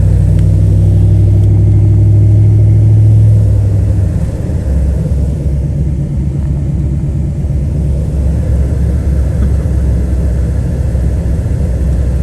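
2000 GMC Sierra 1500 pickup truck driving: a steady low engine drone that eases off about three and a half seconds in, leaving a rougher, uneven rumble.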